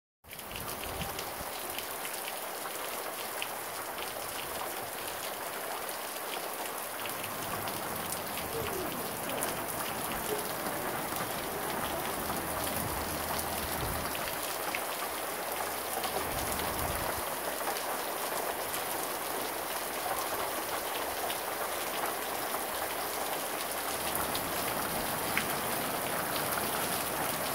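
Torrential downpour of rain pounding on a concrete driveway and gravel yard: a steady, dense hiss of countless drops, growing slightly louder as it goes.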